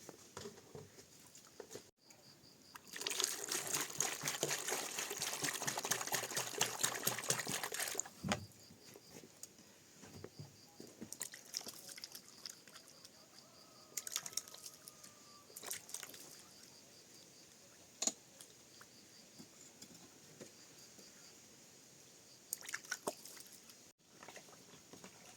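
Water pouring steadily for about five seconds, starting a few seconds in, then scattered drips and light knocks.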